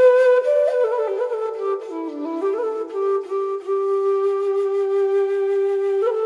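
Background music: a slow, breathy melody on a flute-like wind instrument, moving between a few notes and then holding long notes.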